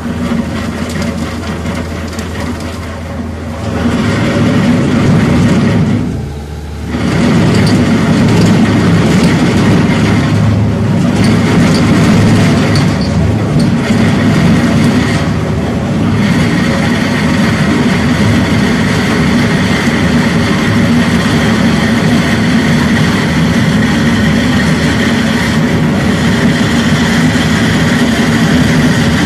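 Bobcat skid-steer loader with a wheel-saw attachment running, a loud, steady mechanical din that dips briefly about six seconds in.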